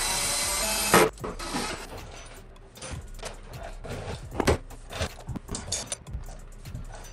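A steady rushing hiss cuts off with a sharp clack about a second in. Then come irregular metallic clicks and knocks as a wheel and tyre is hung on a bare hub and the lug nuts are started on the studs.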